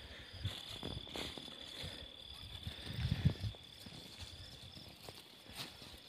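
A steady high-pitched insect trill runs on through the field, over soft rustling and scraping of soil and cloth handled by hand, loudest about three seconds in.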